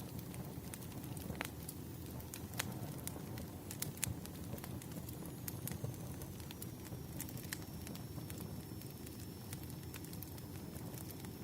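Wood fire burning: a steady low rumble with irregular sharp crackles and pops of burning logs. A faint high thin tone runs in the background from about halfway through.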